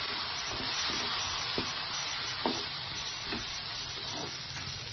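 Garlic, small onions, tomato and turkey berries frying in oil in a kadai, sizzling steadily, as a ladle stirs in freshly added kuzhambu powder with a few faint scraping strokes.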